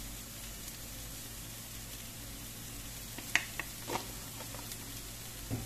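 Onions and shredded chicken frying in a pan: a low, steady sizzle, with a few light taps about three to four seconds in and again near the end.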